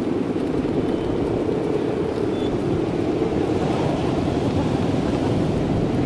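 The humming bow (guangan) of a large Balinese kite droning steadily in strong wind, mixed with wind noise on the microphone.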